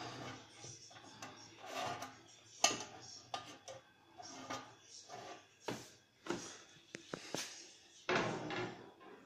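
Irregular knocks, taps and scrapes of steel smoker parts being handled and worked on with a screwdriver during assembly, with a louder knock near the end.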